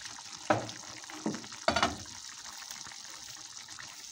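Pot of İzmir köfte stew (meatballs, tomatoes, peppers and potatoes in sauce) bubbling and sizzling on the hob with a steady hiss, with three brief louder sounds in the first two seconds.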